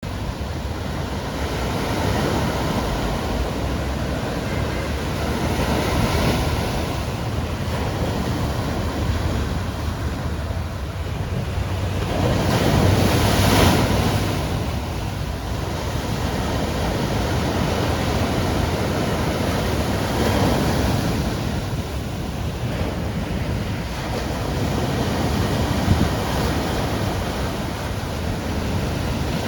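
Caribbean Sea waves breaking and washing ashore in a continuous surf noise, swelling in several surges, the biggest about 13 seconds in.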